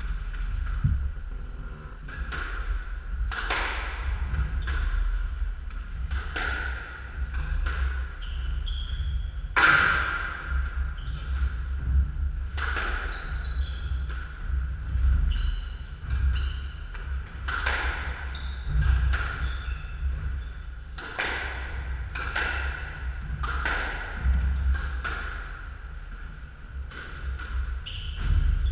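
A squash rally: the hollow crack of the ball struck by racquets and hitting the court walls, roughly every second or two, with short high squeaks of players' shoes on the wooden floor between shots.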